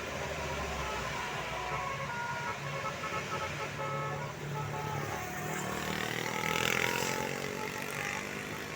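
Road traffic on a hill climb: vehicle engines running under steady road noise. About six to seven seconds in, an engine rises in pitch and grows louder as a vehicle passes close.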